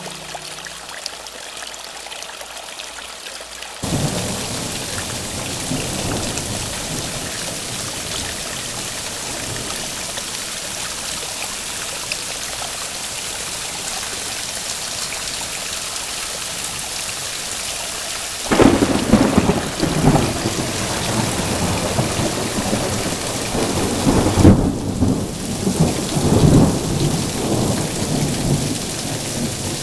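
Thunderstorm: steady rain that gets heavier about four seconds in, with long rolls of thunder starting about two-thirds of the way through and coming again a few seconds later.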